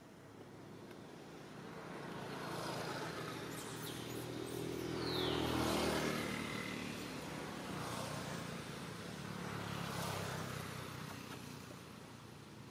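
A motor vehicle driving past, growing louder to a peak about halfway through and then fading, with a second, smaller swell near the end.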